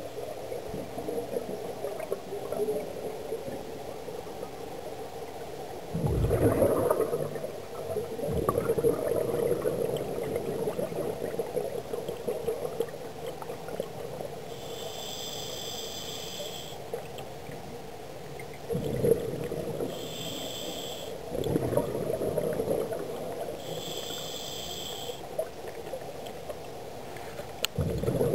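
Scuba regulator breathing heard underwater through a camera housing. Several rumbling surges of exhaled bubbles alternate with high whistling hisses of inhaled air through the regulator, over a steady low drone.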